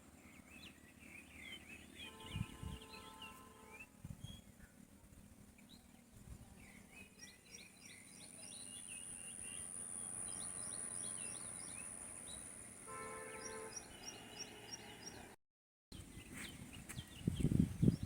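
Small birds chirping and twittering in the forest, many short calls overlapping, some in quick repeated runs. A faint thin high steady tone runs through the middle.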